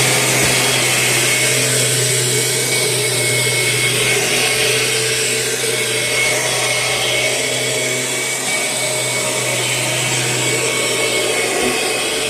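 Kirby Generation 6 upright vacuum cleaner running steadily: a constant motor hum with the rush of air through the fan.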